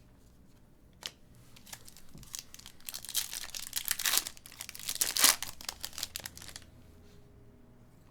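Trading card pack wrapper being torn open and crinkled by hand: a dense crackling tear that builds for a few seconds and stops abruptly.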